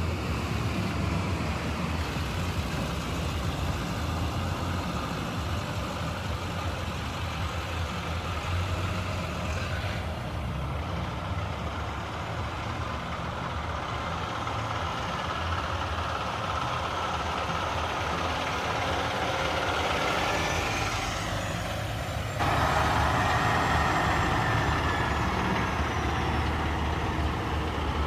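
Cars and trucks driving past in a slow procession: engines running and tyre noise. The sound gets abruptly louder about 22 seconds in.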